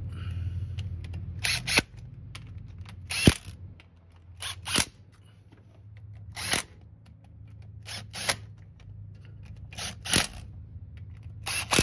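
Sharp metallic clicks from a hand tool tightening the bolts of an axle's differential cover. About a dozen clicks come at irregular intervals, often in quick pairs, over a faint low hum.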